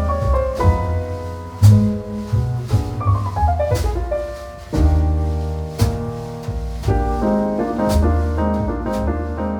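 Background music: piano over a bass line and drum kit, with falling piano runs and a steady beat.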